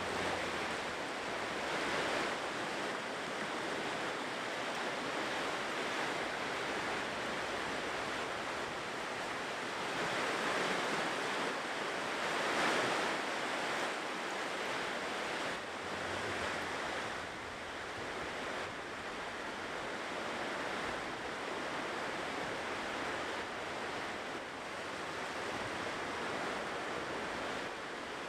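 Ocean surf washing on a shore: a steady rush of breaking waves, swelling louder about two seconds in and again around the middle.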